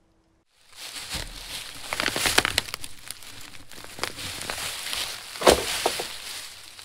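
Footsteps crunching through dry fallen leaves, starting about half a second in, with many small crackles and one loud crack about five and a half seconds in.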